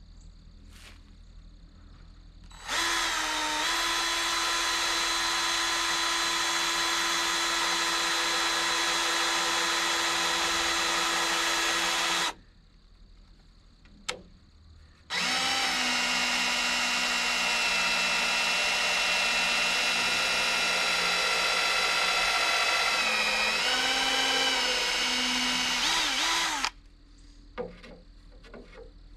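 Electric drill running in two long steady spells of about ten seconds each, with a short pause between. Its pitch sags a few times near the end of the second spell, where the motor slows briefly.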